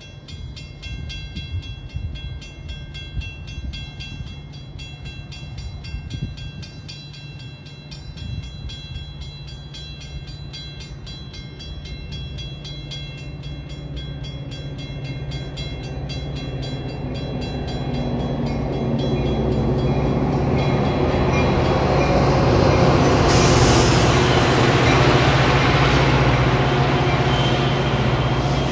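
A train approaching, its noise building steadily over about twenty seconds to a loud peak near the end, over a steady low drone.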